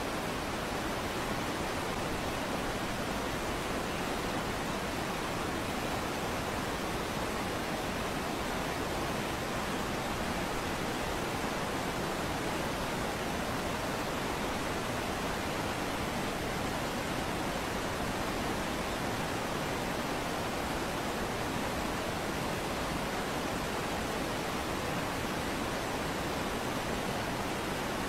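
Steady, unchanging rushing of fast whitewater, an even roar with no breaks.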